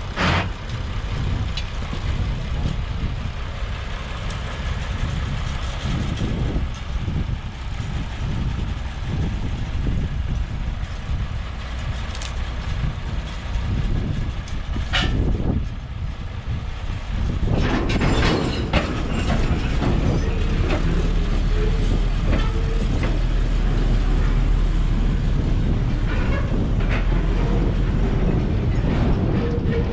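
Heavy machinery from a sugarcane loading operation: engines running steadily, with occasional sharp clanks and knocks. About two-thirds of the way in the running settles into a steady low hum.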